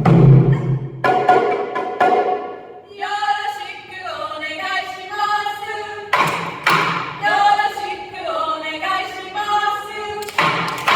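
Taiko drum strikes, two near the start, then voices singing a melody together, with single drum hits cutting in about six seconds in and again near the end.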